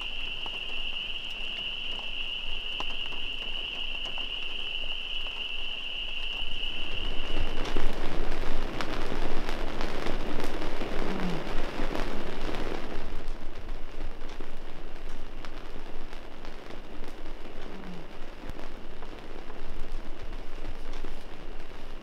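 Rain falling on a fabric canopy overhead, with many small drop ticks; it grows heavier about seven seconds in and keeps up. For the first seven seconds a steady high-pitched trilling chorus sounds over it.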